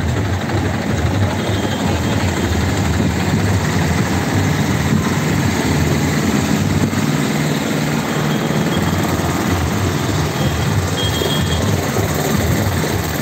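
A heavy engine running steadily with a low, even rumble under loud broad noise.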